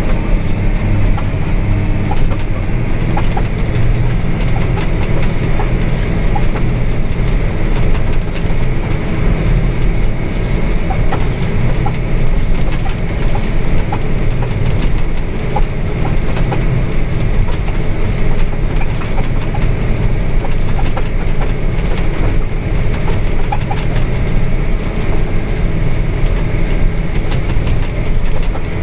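John Deere 410R self-propelled sprayer running steadily as it drives through the field: a constant low engine rumble with many small ticks and rattles.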